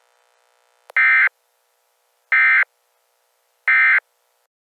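EAS SAME end-of-message data bursts: three short, identical warbling digital tone bursts about a second and a half apart, signalling the end of the alert.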